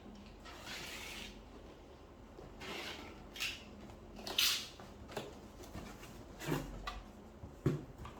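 Quiet handling noises: scattered rustles and scrapes with a few soft knocks and thuds, the loudest about four and a half seconds in.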